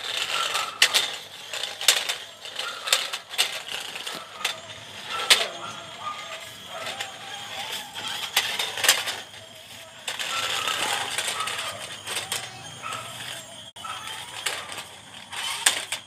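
Plastic remote-control stunt car with its small electric gear motors whirring and clicking, and its plastic wheels clattering on concrete. Repeated sharp knocks come as the car tips and flips over.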